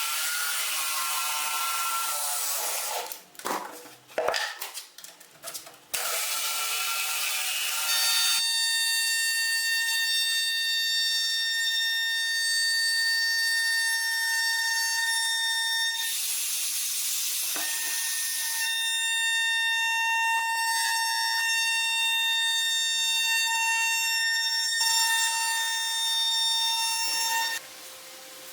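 Small power tool running with a steady high-pitched whine, briefly stopping and starting in the first few seconds. A rougher, noisier stretch comes near the middle, and the tool cuts off near the end.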